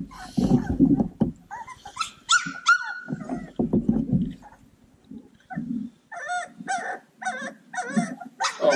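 A litter of three-week-old Cane Corso puppies yipping and whimpering, with low growls in the first seconds. High wavering cries come around two to three seconds in, then a run of quick short yips, about three a second, near the end.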